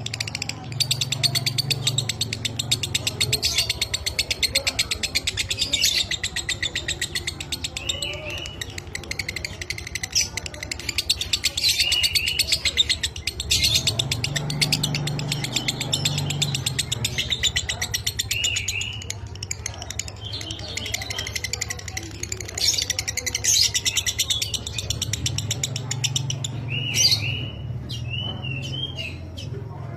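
Lovebird chattering in one long, unbroken rapid trill (the 'ngekek' song), mixed with repeated short rising-and-falling chirps.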